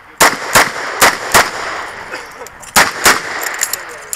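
Smith & Wesson 929 9mm revolver firing six shots: four in quick succession about 0.4 s apart, then, after a pause of about a second and a half, two more close together.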